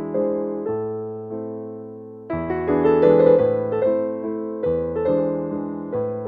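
Background music played on electric piano: chords struck and left to fade, changing every second or two over a low bass line.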